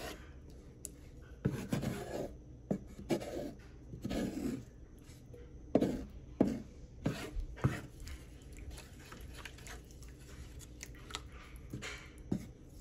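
Wooden spatula stirring thick rajma curry in a frying pan, scraping and knocking against the pan in irregular strokes.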